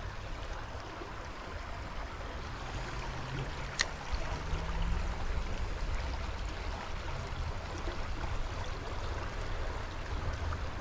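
Small creek running steadily over rocks and debris, with a single sharp click about four seconds in.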